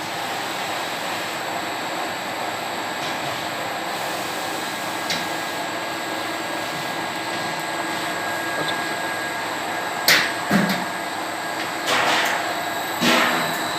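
Candy-cutting machine running with a steady mechanical whirr, with several sharp clacks in the last few seconds.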